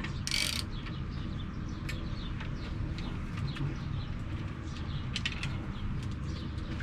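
Small birds chirping in the background over a steady low rumble, with a short hiss about half a second in and a few faint clicks a little after five seconds.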